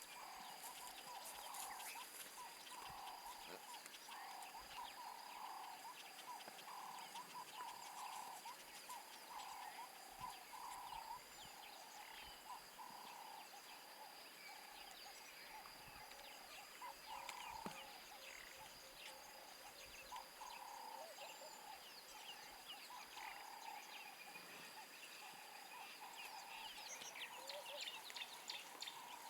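Faint wildlife ambience: short animal calls repeating roughly once a second over a steady, high-pitched whine.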